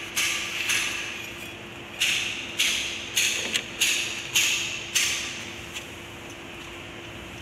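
Hammer blows on metal: about ten sharp strikes over the first five seconds, irregularly spaced and each ringing briefly, then they stop.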